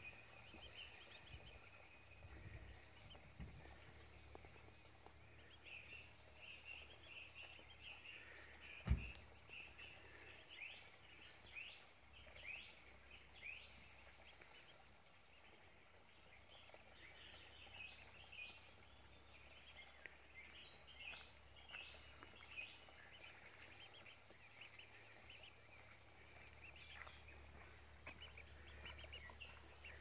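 Faint chirping of small birds in short rising notes, coming in clusters, over a low steady background noise, with a single low thump about nine seconds in.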